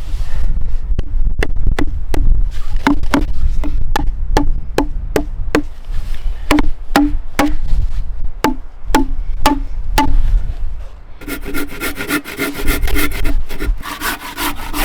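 An axe striking wood in steady blows, about two or three a second, each with a short ringing tone, while working a wooden joint. About eleven seconds in they give way to a faster, rasping run of strokes on the wood.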